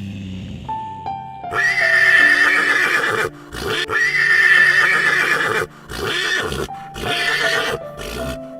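Horse neighing: two long, loud calls followed by three shorter ones, over background music.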